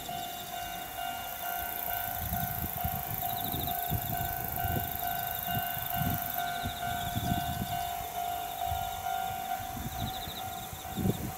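Railway level-crossing alarm ringing steadily, under a gusty low rumble, with short high trills twice.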